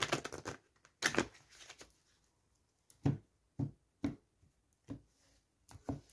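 A deck of cards being shuffled by hand: a quick flurry of card clicks at the start and again about a second in, then single soft taps about every half second.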